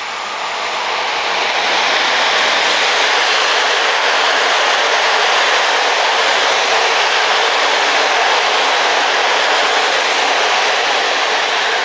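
Locomotive-hauled passenger train passing at speed: a steady rushing of coach wheels on the rails that builds over the first couple of seconds as the train comes alongside, then holds.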